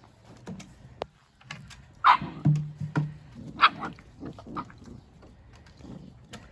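Puppies playing rough with each other, giving short high yelps about two seconds in and again near the middle, with a brief low growl between them.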